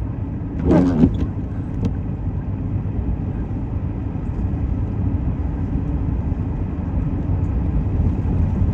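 Steady low rumble of a pickup truck's engine and tyres heard from inside the cab while driving on a snow-covered road, with one short sound falling in pitch about a second in.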